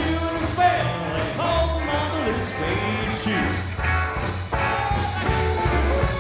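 Live rockabilly trio playing: hollow-body electric guitar playing a lead line with bent notes over a walking upright bass and drums.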